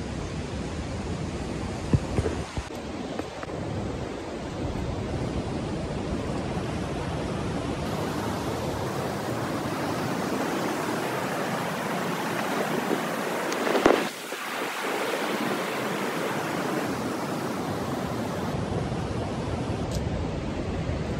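The Yamuna river's fast-flowing water rushing steadily, with a brief louder swell about two-thirds of the way through.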